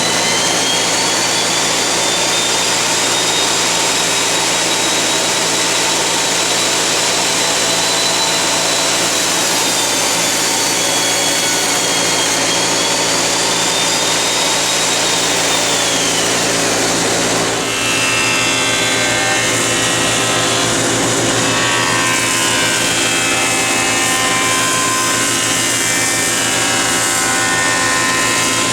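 Hitachi CB 75 F resaw bandsaw ripping strips from a hard maple board, with a dust collector running alongside. A high whine wavers and dips during the cut, and the sound changes about two-thirds of the way through.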